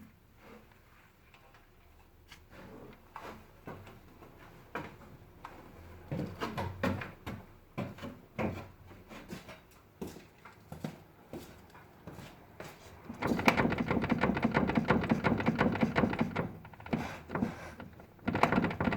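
Steering rack of a VW Passat B5+ knocking: scattered knocks and clunks that grow more frequent, then a fast run of rattling knocks for about three seconds, then a few more. The knock is the sign of a worn steering rack.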